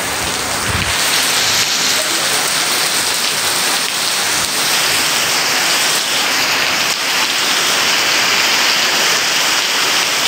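Heavy monsoon rain pouring steadily, a dense hiss of rain on roofs and ground that grows a little louder about halfway through.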